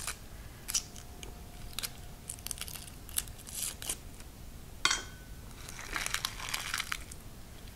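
Dry, papery yellow onion skins crackling and rustling as they are peeled off by hand, with a sharper tap about five seconds in.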